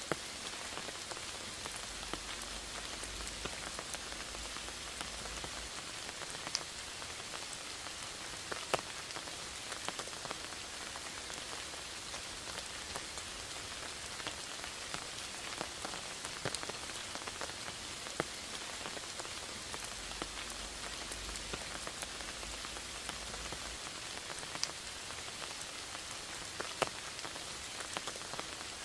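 Steady rain falling: an even hiss with individual drops ticking sharply here and there.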